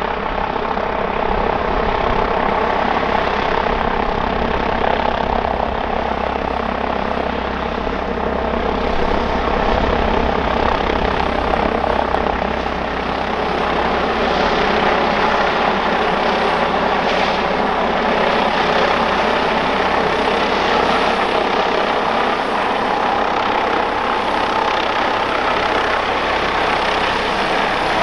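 Airbus H145 D3 five-bladed helicopter coming in to land, its main rotor and twin turboshaft engines running loud and steady. The sound grows slightly louder over the first few seconds as it descends closer.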